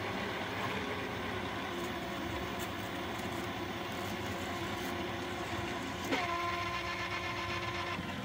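Bambu Lab AMS filament unit whirring steadily as its feed motor draws the white filament back out of the P1S printer at a colour change. About six seconds in, the whine shifts to a new, steadier pitch.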